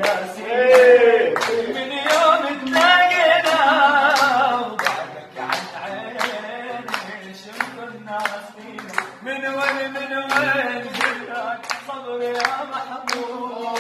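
A man singing an Arabic love song with no instruments, while people clap along at about two claps a second. His voice is loudest in the first few seconds, then continues more softly under the clapping.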